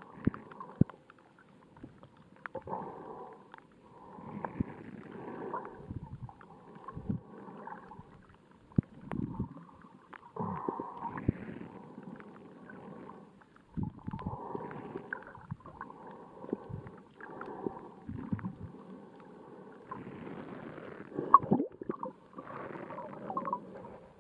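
Muffled underwater water noise picked up by a camera just below the surface over a shallow reef: irregular rushing and gurgling surges every few seconds, with scattered sharp clicks and knocks.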